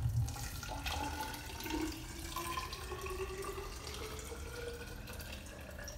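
Water poured from a glass jug into a tall, narrow plastic bottle, splashing with a bubbly sound as it fills. A faint tone rises slowly in pitch as the bottle fills.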